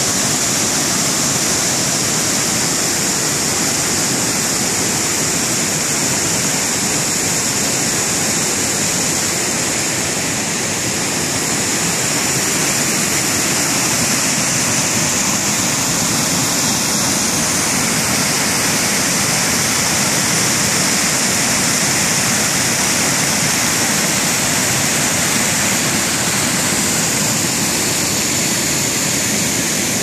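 Creek running high, rushing over flat rock ledges and spilling down small cascades: a loud, steady rush of water.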